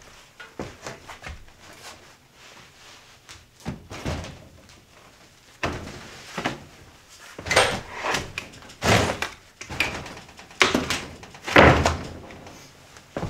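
Irregular wooden thuds and knocks, with about half a dozen heavy ones in the second half, as lumber or a plywood floor patch is set and knocked into place.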